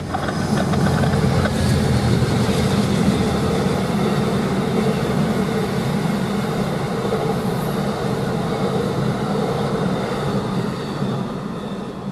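Amtrak passenger train with a single P42DC diesel locomotive passing close by, its cars rolling over the rails. The sound swells about a second in and slowly fades toward the end as the last cars go by.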